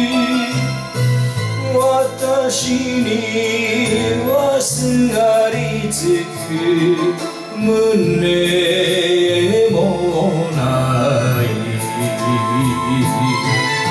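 Man singing an enka song into a microphone over a karaoke backing track with a walking bass line and light percussion.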